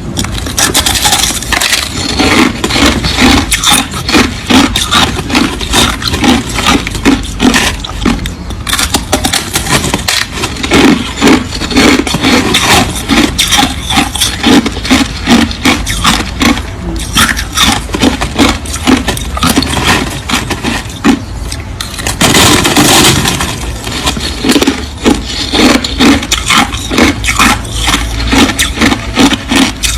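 Crushed ice crunching between the teeth, close to the microphone: a steady run of crackling bites, chewed at about two to three a second, with a few brief pauses.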